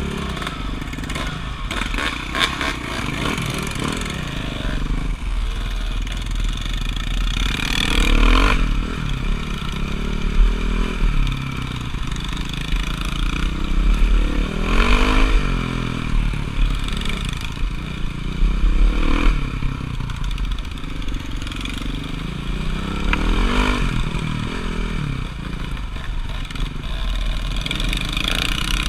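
Motocross dirt bike engine running under riding load, its pitch sweeping up and down several times as the throttle is opened and closed, over a steady low rumble.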